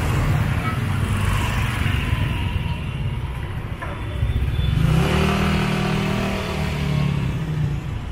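Street traffic: motor vehicle engines running close by, with one engine hum loudest from about five seconds in.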